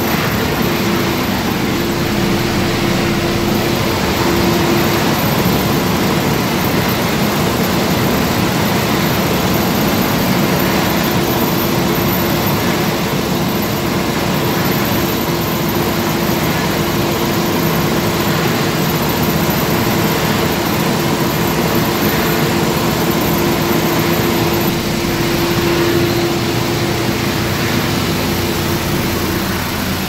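Bluedog BDG-8L copper wire granulator running steadily while chopping coax cable and separating out the copper: a loud, constant machine noise with a steady hum.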